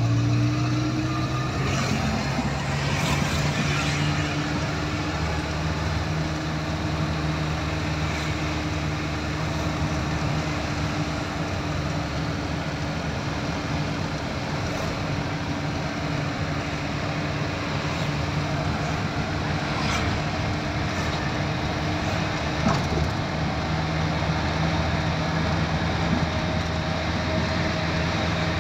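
A vehicle's engine running steadily while driving, heard from inside the cab over road noise. The engine note rises just after the start as it picks up speed, and there is a single short knock about 23 seconds in.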